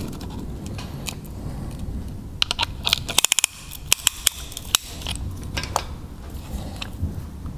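Small metallic clicks and taps from hand tools on a band-type piston ring compressor being tightened around a piston, with a quick run of clicks about three seconds in, over a low steady rumble.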